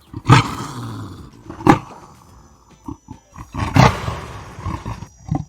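Leopard roaring and growling, with three loud calls about a second and a half to two seconds apart and lower growling between them.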